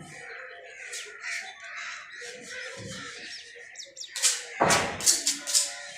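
Crows cawing: faint calls at first, then several loud, harsh caws from about four seconds in.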